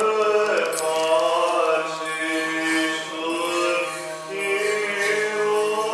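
Men's voices chanting Orthodox Byzantine chant in the monastery church, long held notes sliding slowly from pitch to pitch over a steady low held note.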